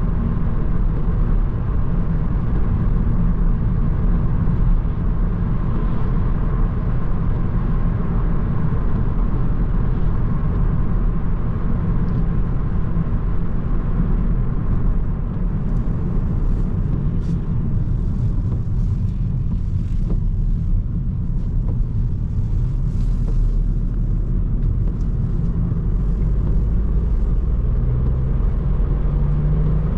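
Seat Ibiza 1.0 TSI three-cylinder turbo petrol engine and tyres heard while driving: a steady low rumble with light scattered clicks in the second half. Near the end the engine note rises as the car accelerates.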